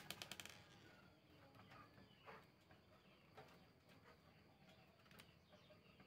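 Near silence with faint bird chirps in the background, short falling calls coming every so often. A quick run of small sharp clicks sounds in the first half second.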